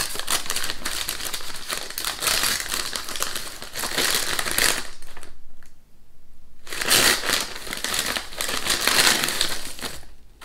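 Brown paper wrapping being crumpled and crinkled as it is pulled open, in two stretches with a pause of about two seconds in the middle.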